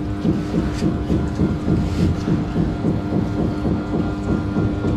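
Water bubbling with a steady hum, typical of air-pump aeration in fish tanks; many short bubbling blips come several times a second over a constant low drone.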